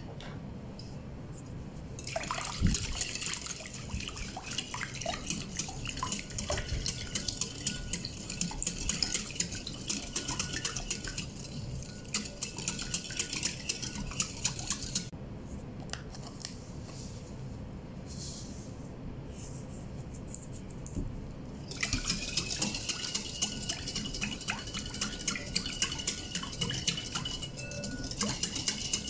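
Metal wire balloon whisk beating a thin liquid in a ceramic bowl, its wires rapidly clicking and scraping against the bowl, with a faint ringing from the bowl. It whisks briskly for a long stretch, goes mostly quiet for several seconds, then starts again about two-thirds of the way through: dissolving sugar, and then a pinch of salt, into the liquid.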